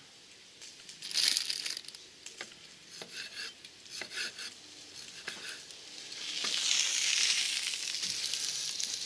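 A knife cutting through a crusty baguette on a wooden chopping board, in short crunchy strokes. From about six seconds in, sausages sizzle steadily as they fry in a pan.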